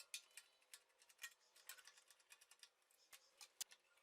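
Near silence with faint, scattered light clicks and ticks, a dozen or so, irregularly spaced.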